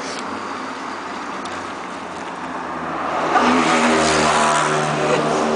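Road traffic: a steady hiss of passing cars, then a vehicle's engine grows louder about three seconds in as it goes by close.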